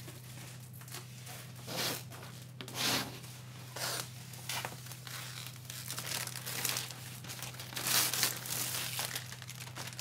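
Blue protective plastic film being peeled off a 1/8-inch clear plexiglass panel, crinkling and tearing in irregular bursts as it pulls away from the surface and crumples.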